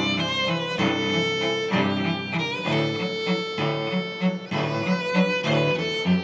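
Instrumental music led by violin over other bowed strings, playing a melody in changing notes.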